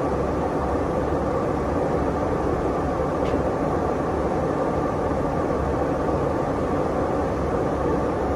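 Steady cabin noise of a KC-135 Stratotanker in flight, heard from inside the aircraft: an even rush of engine and airflow noise with a faint steady hum.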